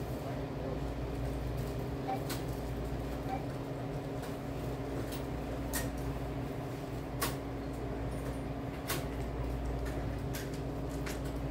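Shop room tone: a steady low hum from in-store machinery, with several sharp light clicks and taps scattered a second or so apart.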